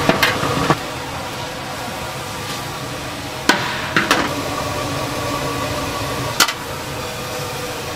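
Sharp metallic clanks as a large metal steamer lid is lifted off a pan of steamed buns and handled: a couple of knocks near the start, two or three more around the middle, and one near the end. Under them runs a steady hum.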